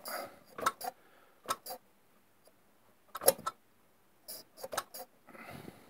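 Sharp, irregular ticks of a spark plug snapping across its gap as a British Seagull 40 Plus outboard is turned over by hand during a spark check; the plug is sparking well. The loudest tick comes about three seconds in, a quick cluster follows about a second later, and a soft rustle comes near the end.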